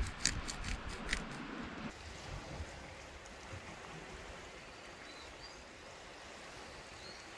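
Sea water washing steadily against the rocks. In the first two seconds there is a quick run of faint, sharp ticks, about five a second, and a few faint high chirps come later. The sound cuts off abruptly at the end.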